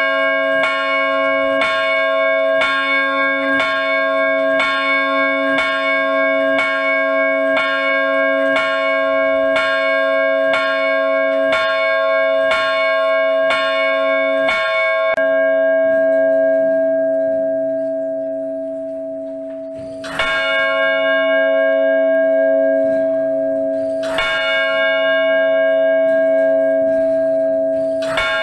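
Large church bell struck by a Pulsator automatic bell ringer, tolling evenly about once a second. After about fifteen seconds the strokes stop and the bell rings on, fading, then it is struck singly every four seconds or so.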